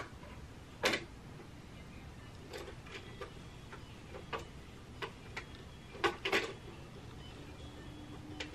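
Scattered light clicks and taps from hands working a Victrola suitcase record player's tonearm and controls, with a close pair about six seconds in. A faint steady hum comes in near the end.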